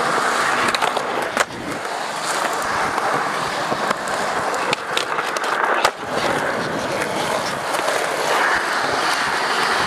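Skateboard wheels rolling and carving on a concrete bowl, a steady rough rumble, with a few sharp clacks of the board or trucks about a second, about four and a half seconds, and about six seconds in.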